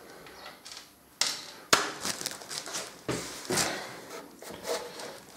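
Handling sounds of a hand working under a motorcycle's sump over a plastic oil drain tub: two sharp knocks a little over a second in, then scraping and rustling.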